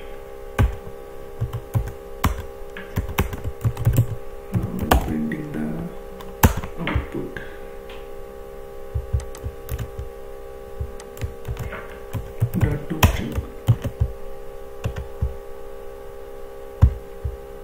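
Typing on a computer keyboard: irregular, quick key clicks in short runs, over a steady electrical hum.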